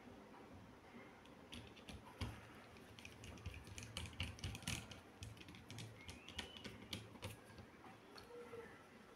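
Irregular light clicks and taps of small phone parts and tools being handled as a Nokia mobile phone is reassembled, busiest through the middle of the stretch.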